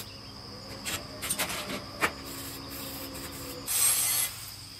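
MIG welder crackling in a few short tack welds on steel, then, a little under four seconds in, an angle grinder grinding steel in a brief loud burst.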